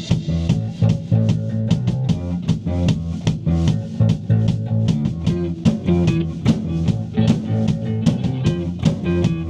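Rock band playing an instrumental passage between verses: guitar and bass over a drum kit keeping a steady beat.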